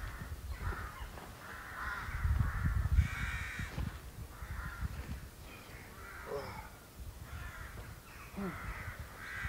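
A bird calling again and again with harsh, crow-like caws. About two to four seconds in there is a spell of low bumping and rustling as someone climbs out of a small tent.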